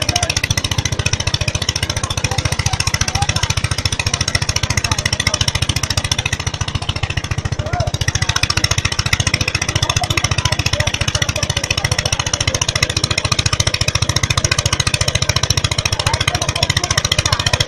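Restored 1930s Biagioni threshing machine, driven by an air-cooled Slanzi S20 engine, running steadily with a rapid, even beat as straw sheaves are fed into it.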